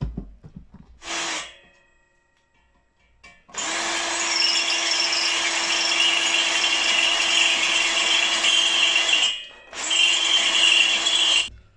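Ryobi cordless drill boring a hole in a copper model boiler shell with a small bit. It gives a short blip of the trigger, then a steady run of about six seconds at constant speed. After a brief pause it runs again for about two seconds.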